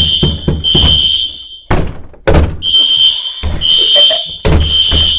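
Hotel fire alarm sounding a high, steady tone in groups of three pulses, each group followed by a short pause (the three-pulse evacuation pattern), with several heavy thumps in between.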